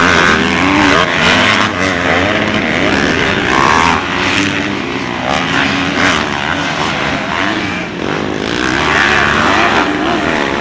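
Several motocross bikes' engines revving hard at once, a loud, continuous mix of overlapping engine notes rising and falling as the riders accelerate and shift.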